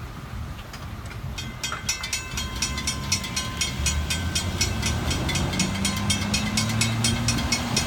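Railroad crossing warning bell ringing, about four strikes a second, starting about a second and a half in while the gate arms rise after the train has cleared. Under it, road vehicles drive over the crossing, their rumble growing about halfway through.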